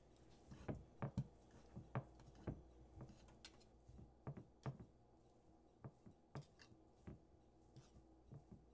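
Faint, irregular clicks and taps of a metal fork and knife against a glass baking dish, a couple a second, as cooked chicken breast is pulled apart.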